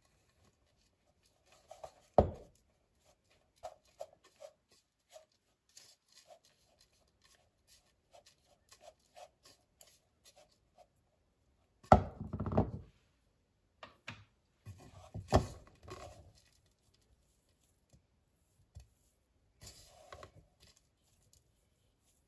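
Spatula stirring and scraping a crumbly nut-flour dough in a ceramic bowl: a string of soft scrapes and ticks, with a few louder knocks and clatters.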